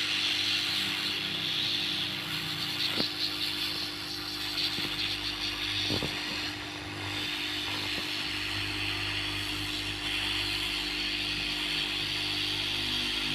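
Hot-air SMD rework station blowing steadily while desoldering a surface-mount IC from a circuit board: a constant airflow and fan hiss with a steady hum under it. A few light clicks sound now and then.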